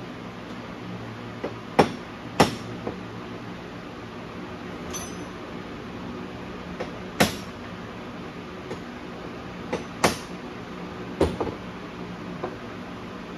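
Metal engine parts and tools knocking and clicking as they are handled on a bench during an engine teardown: about five sharp knocks, two close together near 2 seconds in and others near 7, 10 and 11 seconds, over a steady background hum.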